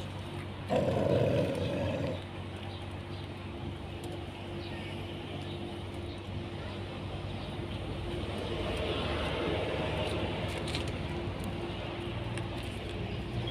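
Street ambience: a steady engine hum with a vehicle passing, and a short loud rushing noise about a second in.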